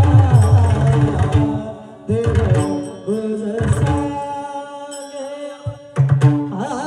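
Marathi abhang devotional singing accompanied by a pakhawaj drum. Fast drum strokes sound under the voice at the start and again a couple of seconds in. The music eases to quieter held notes, then the drumming comes back near the end.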